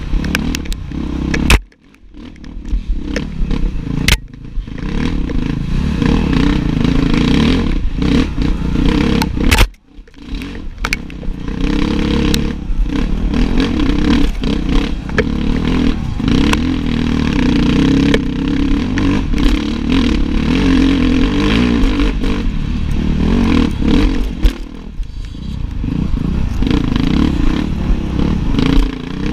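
Enduro dirtbike engine heard onboard, running hard under throttle with knocks and rattles from the bike. The throttle is shut sharply twice, about two seconds in and about ten seconds in, and the engine comes straight back on.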